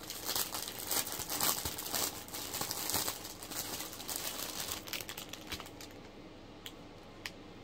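Plastic wig packaging crinkling and rustling as it is handled and opened. The crackling is dense for about five seconds, then dies down to a couple of light ticks near the end.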